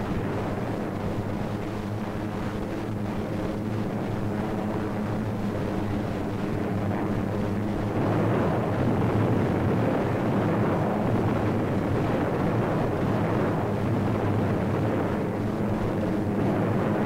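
Propeller aircraft engines droning steadily, the sound getting louder and rougher about eight seconds in.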